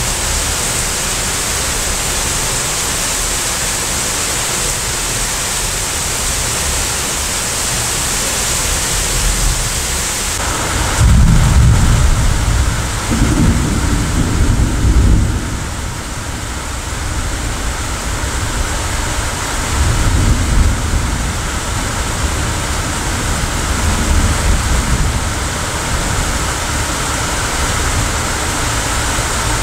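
Steady rain hiss with rolling thunder: a long low rumble starts about a third of the way in and lasts several seconds, and two weaker rumbles follow later.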